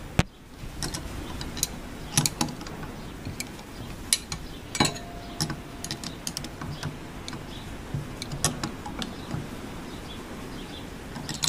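Steel spanner wrench clicking and clinking against the notched lock rings of a Megan Racing coilover as the collars are worked along the threaded shock body, setting the spring preload. Irregular sharp metal clicks, a few a second at most.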